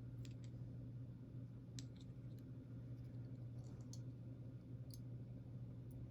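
Faint, irregular clicks of small metal lock parts (pins, springs and follower) being handled and fitted back into an Abus 72/40 padlock, over a steady low hum.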